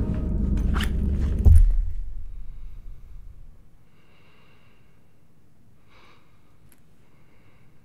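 A loud low rumble with quick clicks, ending in a heavy thump about a second and a half in and fading away. Then a quiet room with a few soft breaths through the nose.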